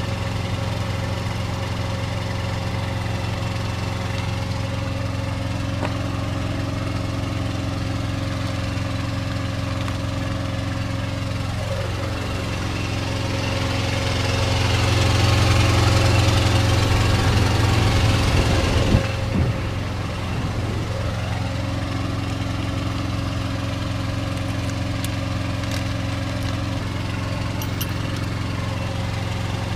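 Truck engine idling steadily, louder for several seconds in the middle before dropping back suddenly.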